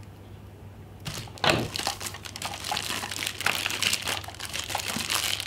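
Packaging crinkling and rustling as the hard drive docking station is lifted out of its box, with a sharper crackle about a second and a half in.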